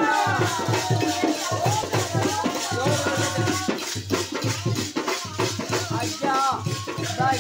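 Live folk music: singing over a steady hand-drum beat, with jingling, rattling percussion on the beat.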